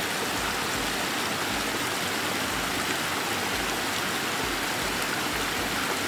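Shallow rocky stream rushing steadily over stones and down a small cascade.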